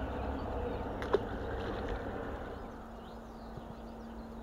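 Outdoor ambience on an action-camera microphone: low wind and handling rumble that eases off after a couple of seconds, one sharp click about a second in, and faint bird chirps. A steady low hum sets in near the end.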